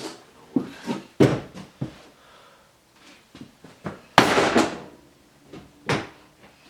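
Brake master cylinder being tapped down against a hard surface in a series of irregular knocks, working the secondary piston toward the outlet. One louder, longer knock comes about four seconds in.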